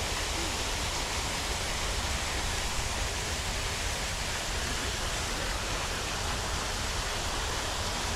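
Steady rushing of water falling over a small waterfall, an even wash of noise with no breaks.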